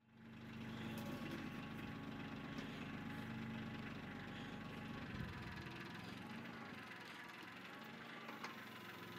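Kioti CK25 compact tractor's diesel engine running steadily at idle, its low hum easing slightly about five seconds in.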